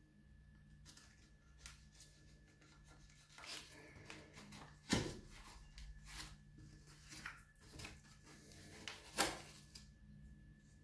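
Faint rustling and scraping of hands handling a cork bark orchid mount, with a few short, louder scuffs, the strongest about five seconds in and again near nine seconds.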